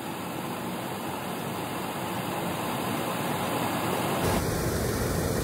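Toyota Tacoma engine idling steadily at operating temperature while its cooling system is bled of air through a radiator funnel. A deeper low rumble comes in about four seconds in.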